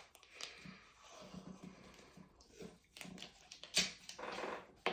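Tape being pulled from the roll and pressed down across a row of wooden barbecue skewers: scattered rustling and clicking handling noises, with a sharper ripping sound near the end.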